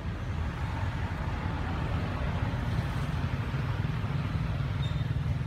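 Steady low outdoor background rumble with a faint hiss, with no distinct events.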